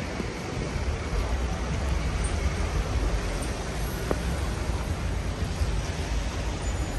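City street ambience: a steady wash of traffic noise with a low, uneven rumble of wind buffeting the microphone.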